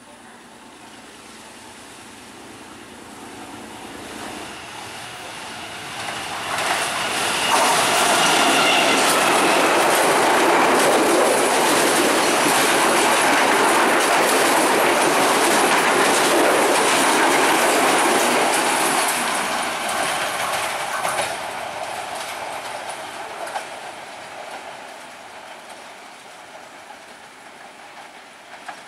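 Diesel-hauled passenger train passing at speed, its locomotive working at full throttle, with the carriage wheels clattering over the rail joints. It swells as it approaches, is loudest for about ten seconds as the carriages go by, then fades as the train draws away.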